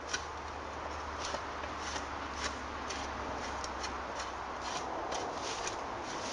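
Draw knife peeling bark from an ash pole held in a riving brake: a run of short, irregular scrapes and clicks, several a second.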